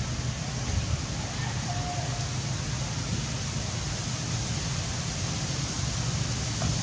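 Steady outdoor background noise: an even hiss over a low rumble, like wind on the microphone, with a faint brief whistle about two seconds in.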